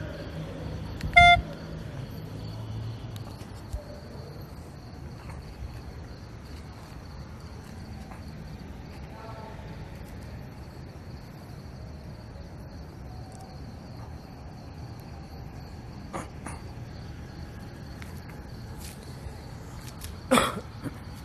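Crickets chirping steadily in the background. A short, loud beep sounds about a second in, and a brief louder noise comes near the end.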